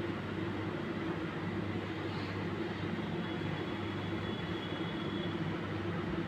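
Steady hum and rush of a commercial kitchen exhaust hood's ventilation fan.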